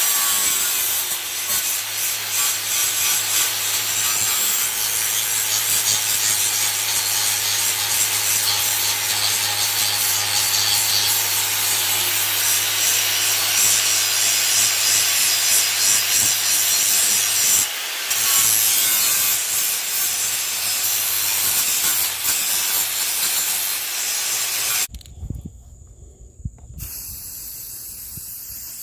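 Angle grinder grinding down the welds on a steel clamp repair, running steadily with a brief let-off about 18 seconds in, then stopping; a short hiss follows near the end.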